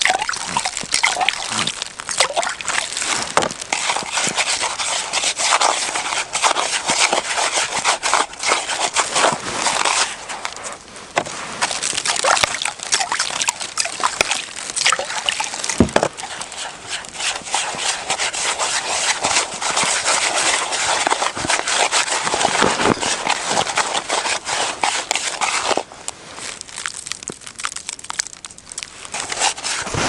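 A slotted metal ice skimmer scooping and stirring slush and water in an ice-fishing hole: wet sloshing with dense crackling. It eases off briefly just before halfway and again near the end.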